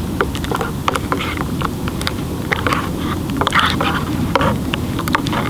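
A plastic spoon stirring and scraping thick food in a metal canteen cup, with many short clicks of the spoon against the cup's sides, over a steady low rush from the alcohol stove burning beneath.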